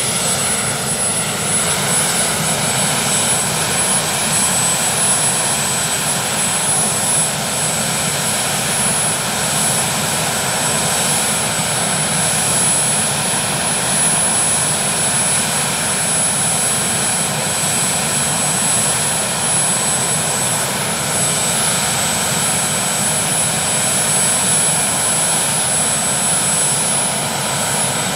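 Westland Sea King helicopter running on the ground with its rotor turning: a steady whine from its twin Rolls-Royce Gnome turboshaft engines, two high whistling tones held over the even rush of the rotor and engines.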